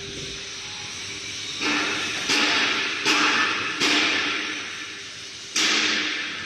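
A run of five sudden hissing bursts, each starting abruptly and tailing off over about a second, over a faint steady hum.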